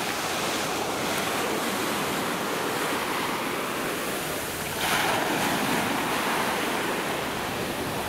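Sea surf washing onto a sandy beach, a steady rush of breaking waves, with a louder wave breaking about five seconds in.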